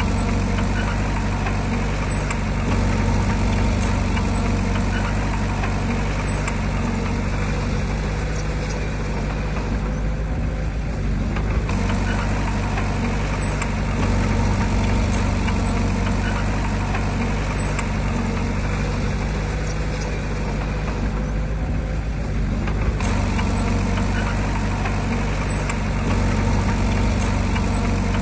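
Diesel engine of heavy earthmoving machinery running steadily, a low drone with a rough upper hiss that eases briefly twice, about a third of the way in and again near three quarters.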